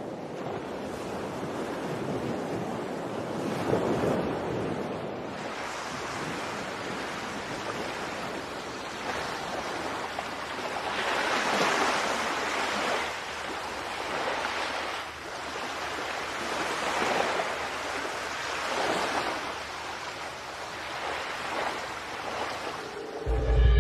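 Rushing outdoor noise of wind and passing road traffic, swelling and fading several times. Music comes in right at the end.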